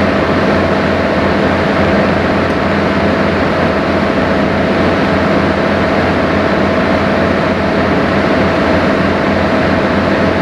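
Sightseeing boat under way, its engine running steadily: a constant low drone with a couple of steady hum tones under an even rushing noise.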